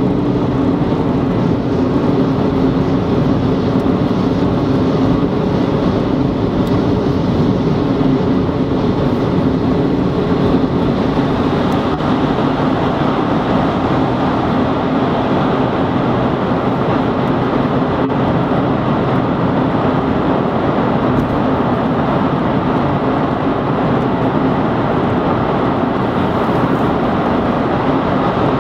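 Steady road noise heard inside a car's cabin at motorway speed: tyre roar with a low engine hum. The noise grows a little brighter about halfway through, as the car drives into a road tunnel.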